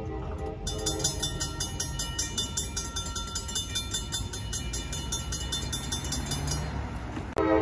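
Railroad grade-crossing bell ringing in rapid, even strokes while the crossing gates rise, stopping shortly before the end over a steady low rumble. A train horn starts right at the end.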